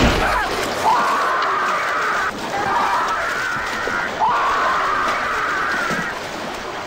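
A man screaming in agony: three long, drawn-out screams, the first and third rising sharply at their start and then held, after a heavy thud right at the start.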